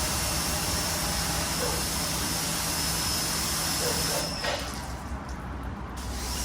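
RYOBI 2000 PSI electric pressure washer spraying, a steady hiss of water with a faint high motor whine. The spray cuts off sharply about four seconds in and starts again near the end.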